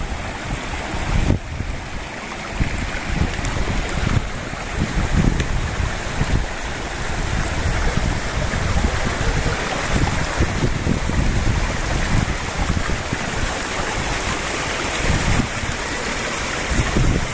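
Shallow rocky stream running over stones, with water pouring from a small cascade through a stacked-stone wall. Wind rumbles on the microphone in gusts.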